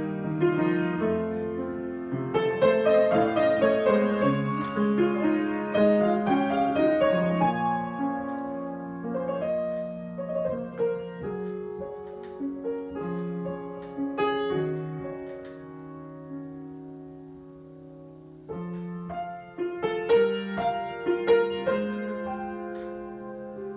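Improvised solo piano playing. Full chords over the first few seconds thin out to quieter sustained notes, then a louder new phrase begins a few seconds before the end.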